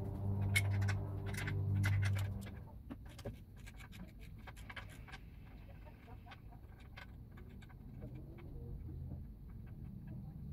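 Hand wrench working the lower-unit bolts of an outboard: sharp metal clicks and scraping, with a steady low hum that stops about two seconds in. After that come fainter scattered ticks and handling noises.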